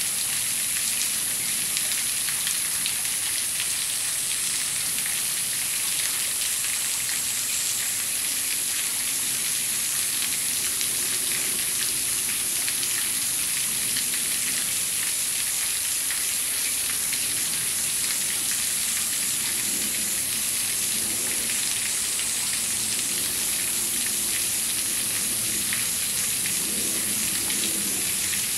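Steady rush of water running over rocks into a pool, an even hiss that does not change, with faint wet crunching from an Asian small-clawed otter chewing a frog.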